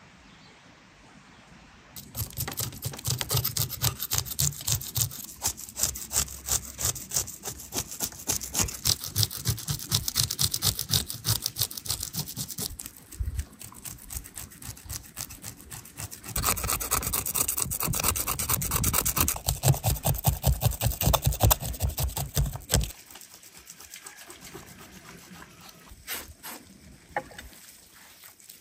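A knife scraping the scales off a large fish on a wooden cutting board: rapid, rhythmic rasping strokes in two long runs with a short pause between, followed by a few light knocks.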